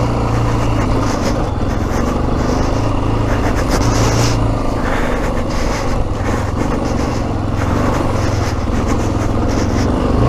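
Yamaha XT 600 E's single-cylinder four-stroke engine running at fairly steady revs as the bike is ridden up a slippery snow-covered trail.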